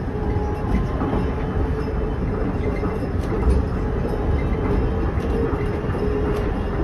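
Soekarno-Hatta Airport Skytrain people mover running along its elevated guideway, heard from inside the front of the car: a steady rumble with a steady whine and light clicks.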